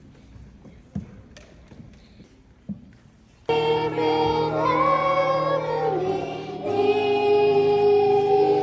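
Quiet background with a couple of soft knocks, then music cuts in suddenly about three and a half seconds in: held, layered singing-like tones, much like a choir.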